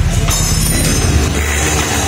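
Background dance music with a deep, steady bass. Under it for about the first second is the low, rapid firing of a bored-up Honda Vario 150 scooter engine running.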